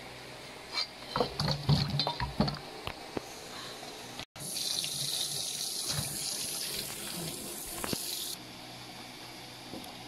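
A quick run of knocks and clatter as a knife scrapes chopped vegetable pieces across a plastic cutting board. Then a kitchen tap runs steadily into a bowl in a stainless steel sink for about four seconds while hands wash the pieces, and it stops abruptly.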